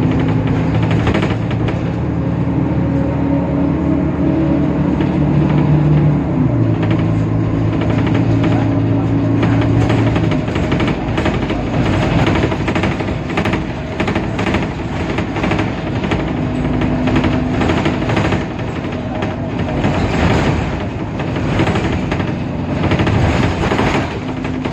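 Temsa Avenue LF city bus heard from on board, its DAF PR 228 diesel engine and ZF automatic transmission running. Several steady tones step down in pitch about six seconds in and fade after about ten seconds, giving way to dense rattling and knocking from the bus body.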